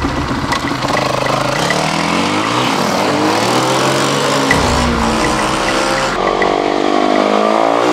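Small engines of a dirt bike and a quad bike revving hard as they accelerate, the pitch climbing and dropping several times, at moments with two engine notes crossing.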